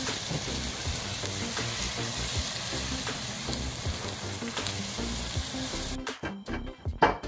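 Chopped onions sizzling in hot oil in a pot, stirred with a wooden spoon, over background music. About six seconds in the sizzling stops and a few sharp knocks of a stone pestle in a granite mortar follow.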